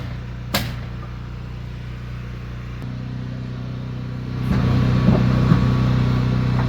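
An engine running steadily with a low hum, with one sharp knock about half a second in; the engine grows louder about four and a half seconds in.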